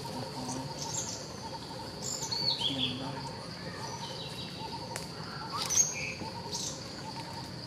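Forest ambience: insects keep up a steady high drone and a faint rapid pulsing. Birds give short high chirps over it, the loudest a little before six seconds in.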